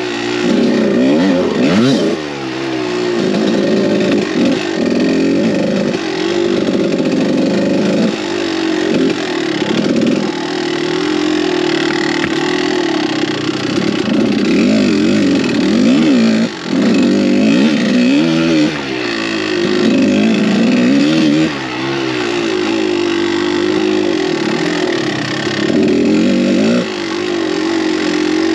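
Kawasaki KDX200 two-stroke single-cylinder dirt bike engine under way, its revs rising and falling over and over as the throttle is worked, with a few short dips where the throttle is shut off.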